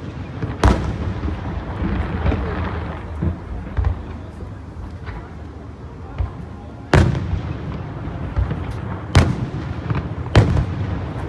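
Fireworks shells bursting: a sharp bang less than a second in, a few softer pops, then three louder bangs, one about seven seconds in and two near the end, over a steady low rumble.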